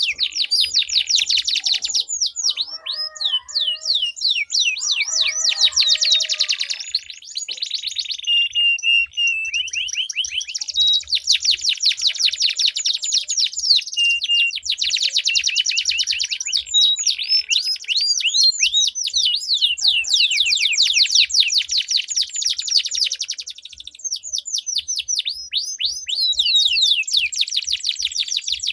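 Domestic canaries singing long rolling trills: fast runs of repeated down-sweeping notes, one trill following another with only short breaks.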